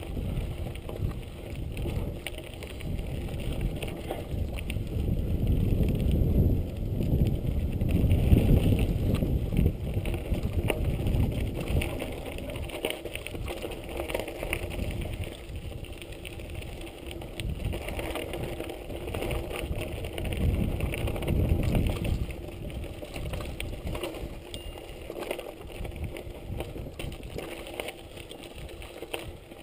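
Mountain bike descending a dirt singletrack: wind rumbling on the microphone over tyres crunching through dry leaves and gravel and the bike rattling over the bumps. It is loudest about six to nine seconds in.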